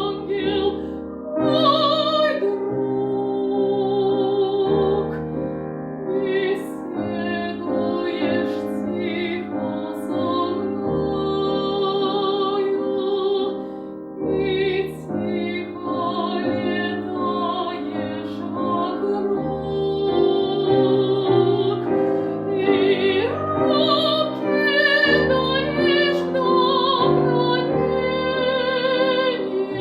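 Classical singing in operatic style with a wide vibrato on long held notes, accompanied by piano.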